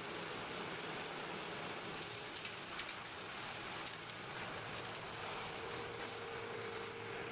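Steady rushing, splashing noise of a vacuum truck's suction pipe drawing black sewage out of a manhole, the liquid churning around the pipe. A faint steady hum joins in about five seconds in.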